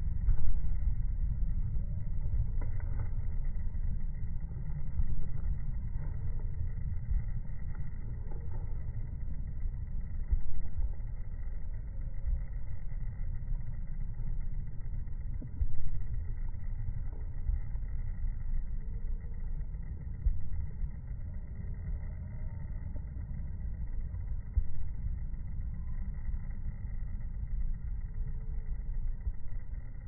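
Steady low background rumble with a few brief louder bumps.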